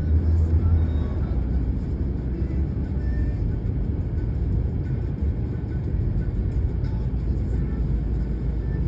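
Moving car's road and engine noise, a steady low rumble.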